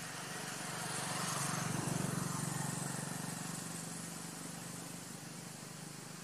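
A motor vehicle passing by off-camera: a steady engine hum that swells to its loudest about two seconds in, then slowly fades away.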